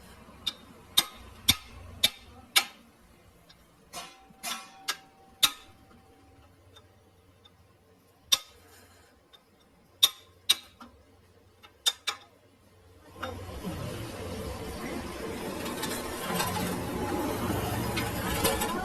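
Sharp metallic knocks on steel work, about two a second at first and then in scattered pairs, one leaving a brief ringing tone. About two-thirds of the way through, a steady workshop machine noise starts and keeps running.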